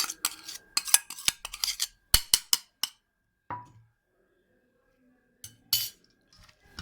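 A spoon clinking and scraping against a bowl in quick, irregular strokes as the garlic, lemon and cumin marinade is scooped out, for about three seconds. After a short pause come a couple of brief clatters.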